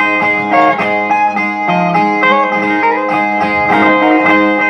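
Viola (the ten-string Brazilian viola of the repentistas) strummed in a steady rhythmic interlude between sung stanzas, with regular plucked chords throughout.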